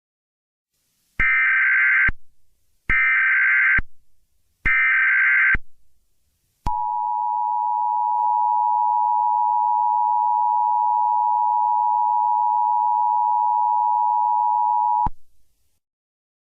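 Emergency Alert System tones: three bursts of the SAME data header, each about a second long, then the two-tone attention signal held steady for about eight seconds, ending abruptly.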